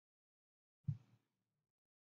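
Near silence, broken about a second in by a single short, soft thump.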